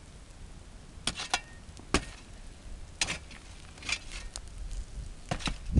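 Couch bonfire crackling, with about seven sharp, irregular pops and cracks over a low steady rush.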